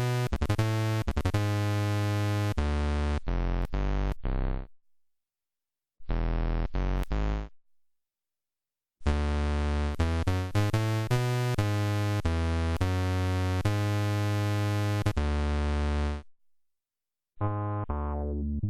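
Demo of Roland Fantom G8 synthesizer sounds: short keyboard phrases of sustained notes and chords, each cut off abruptly into silence before the next patch begins. Near the end a new sound starts with a falling sweep.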